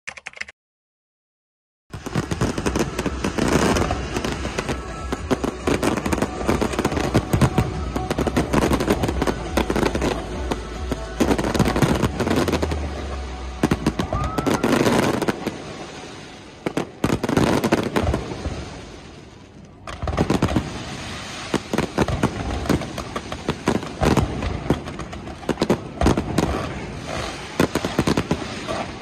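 Aerial fireworks display with many shells bursting at once: dense rapid bangs and crackling that start about two seconds in. The sound dies down briefly about two-thirds of the way through, then picks up again.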